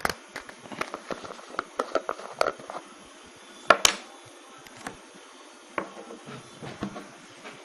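Small clicks and taps of hands handling a bottle of rubbing alcohol and opening its cap, with a sharper double click about halfway through.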